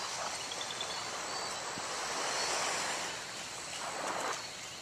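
Steady rushing of small waves washing onto a beach, mixed with a breeze, swelling a little about two seconds in.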